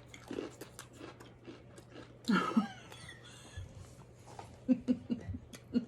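Crisp butter waffle biscuit being bitten and chewed, a series of short crunches close to the microphone, with a brief vocal sound about two seconds in.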